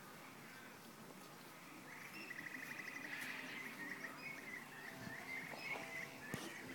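Faint birdsong: a rapid trill about two seconds in, then scattered short chirps, with a sharp click near the end.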